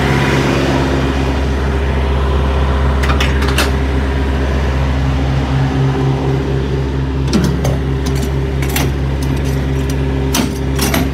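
Diesel engine idling steadily, a loud even drone, with a few sharp clicks and knocks over it.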